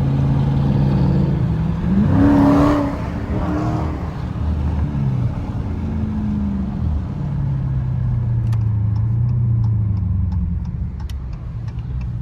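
Car engine running, revved once about two seconds in with a quick rise and fall in pitch, then running on at a lower steady pitch.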